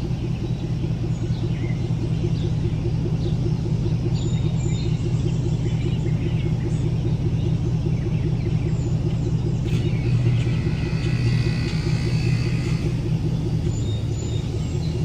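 Heavy-equipment engine running steadily under load as the machine tries to drive out of soft, wet ground it is sinking into. A higher whine rises in for a few seconds about ten seconds in.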